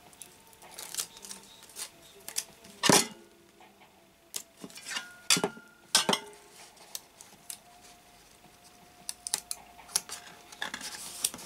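Hands handling and pressing pieces of foil and card onto a papier-mâché dress form: scattered crinkles, taps and sharp clicks, the loudest about three seconds in and a few more around five to six seconds.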